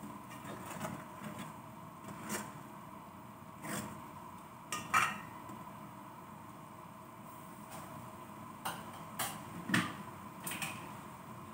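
A spoon clinking and scraping against a large aluminium cooking pot during stirring: scattered sharp knocks, the loudest about five seconds in with a short ring. A faint steady hum sits underneath.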